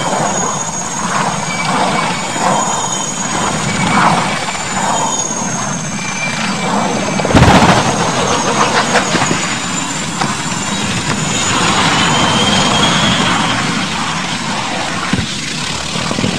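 Military helicopter running low overhead with a high turbine whine, then about seven seconds in a sudden loud crash as it strikes the ground, followed by clattering debris and continued engine and rotor noise.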